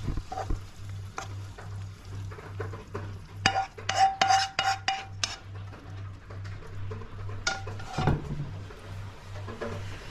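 Spatula scraping chicken karahi out of a nonstick pan into a cut-glass bowl, with a cluster of ringing clinks of pan and utensil against the glass a few seconds in and more around eight seconds. A low, evenly pulsing hum runs underneath.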